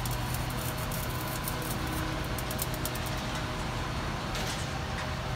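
Diesel engines of truck-mounted mobile cranes running steadily with a low hum, with scattered light clicks over it.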